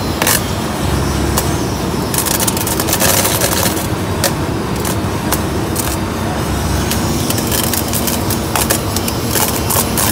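Electric-hydraulic flash-butt rail welding machine flashing a rail joint: a dense crackle of sparks over the machine's steady running, heaviest in two spells, in the middle and near the end.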